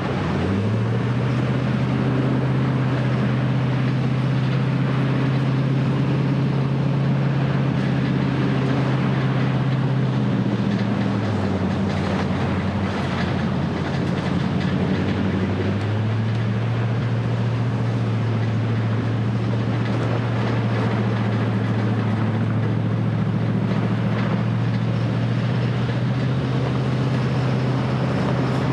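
Vehicle engine running steadily while driving, a low hum over tyre and road noise. The engine note drops about ten seconds in and comes back up around sixteen seconds.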